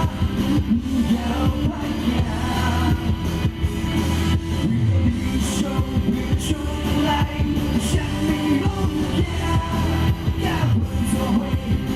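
Live band music with a steady drum beat and heavy bass.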